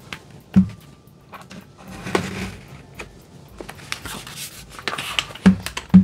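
Plastic bottom-panel clips of a laptop snapping loose as a plastic opening pick is worked along the seam: a sharp snap with a low knock about half a second in and two more near the end, with the pick scraping along the edge in between.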